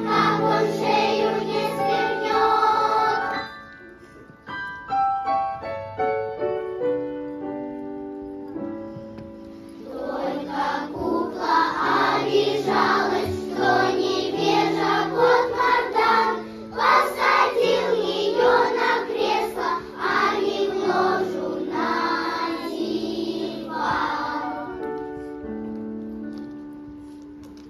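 Children's choir of girls singing with accompaniment. About three seconds in the voices drop out and the accompaniment carries on alone with separate held notes. The choir comes back in around ten seconds and stops near the end, leaving the accompaniment to play quietly.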